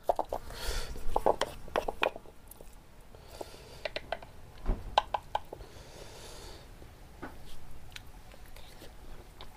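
Mashed chutney being mixed in a small mortar by hand and with a spoon: scattered soft clicks and taps of the spoon and pestle against the bowl, with brief rubbing and scraping twice.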